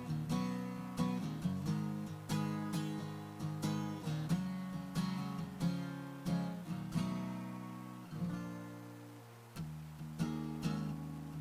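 Background music: acoustic guitar picking and strumming, with notes struck about every half second and left to ring.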